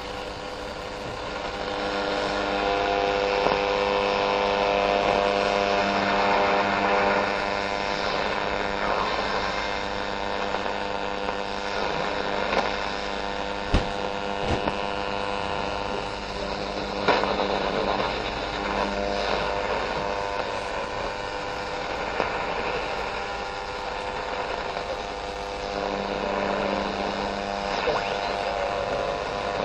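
Colone portable AM radio tuned up through the medium-wave band, giving static with steady hum and whistling tones between faint stations. There are a few sharp crackles, the loudest about halfway through.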